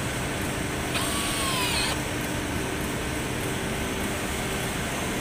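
Cordless drill-driver driving a screw to fix a hinge on a cabinet panel: a short whine about a second in, lasting just under a second and dropping in pitch as it stops, over a steady workshop hum.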